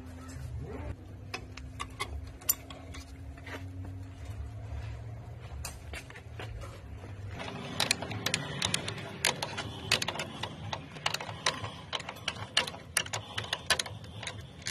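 Metal clicking and scraping as a screwdriver spins the notched star wheel of a rear drum brake's adjuster to back it off and release the shoes. The clicks are scattered at first and come thick and fast from about halfway. Under the first half runs a steady low hum that stops about halfway.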